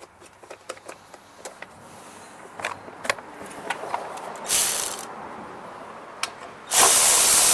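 Small clicks and taps of tools on engine parts, a short loud burst of hiss about four and a half seconds in, then a loud, steady hiss from a power tool starting near the end.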